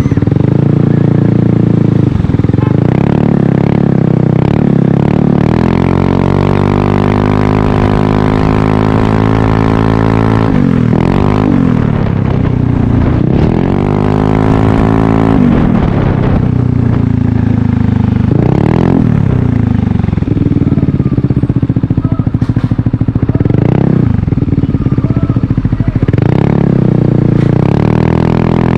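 Yamaha Aerox 155 Connected scooter's single-cylinder engine running through a carbon Corse Italian Performance slip-on exhaust. It is held at steady revs that climb slowly, then blipped several times, the exhaust note rising and falling quickly with each blip.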